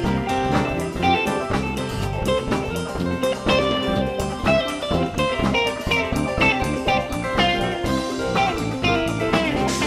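Live band playing an instrumental passage: an electric guitar lead with bending notes over keyboard and drums.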